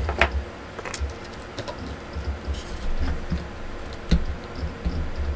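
Scattered light clicks and taps of small plastic figure parts being handled, over low handling bumps; one sharper click about four seconds in.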